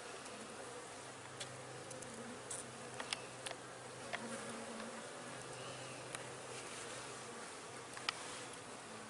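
Honeybees buzzing in a steady hum, with a few faint ticks along the way.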